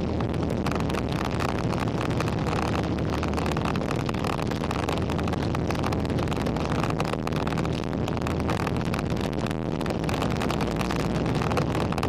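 Wind buffeting the microphone, over a steady low engine drone.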